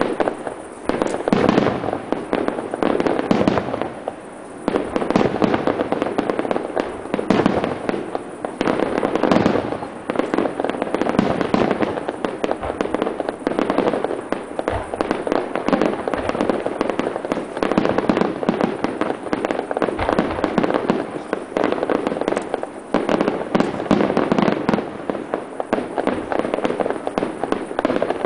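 Aerial fireworks shells bursting one after another in a dense, continuous barrage of bangs, with a brief lull about four seconds in.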